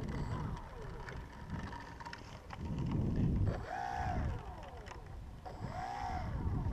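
Model airplane motor revved up and back down twice, each time a whine that rises and falls in pitch, over a low rumble of wind on the microphone.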